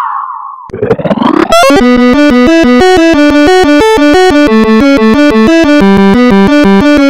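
Electronic keyboard music: a fast, even run of short notes hopping between a few pitches. It starts about a second and a half in, just after a brief rising swoop.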